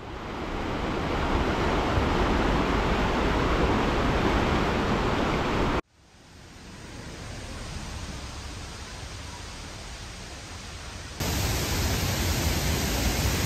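Rushing water of a mountain stream, a steady rush, heard in three cut-together takes. It cuts out and builds back up about six seconds in. A louder, brighter take of a waterfall begins about eleven seconds in.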